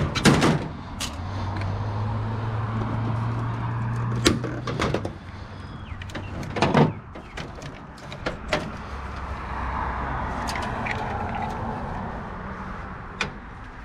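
Knocks, clicks and clatter of a metal computer case and its parts being handled and taken apart, with a steady low whir for a few seconds near the start.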